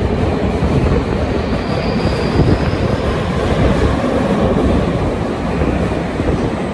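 Subway train pulling out of the station and running past along the platform, its wheels rumbling and clattering on the rails.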